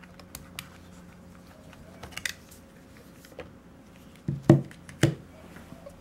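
Light plastic clicks as the battery latch of a Sony VAIO S laptop is worked and the battery pack is pulled out, followed by two louder knocks about half a second apart near the end as the battery is handled.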